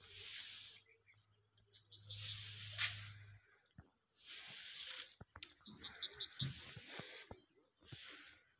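Birds calling in the trees: high, hissy calls about a second long, repeated every second or two, with a fast run of sharp chirps a little past the middle. A faint low hum sits underneath for the first few seconds.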